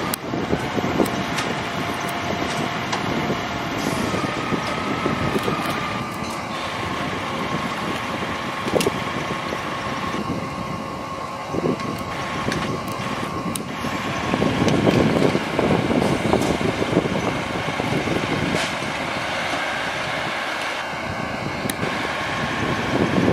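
Fire engines running at the scene: a steady engine rumble with a thin steady whine, broken by a few sharp knocks, and louder for a couple of seconds in the middle.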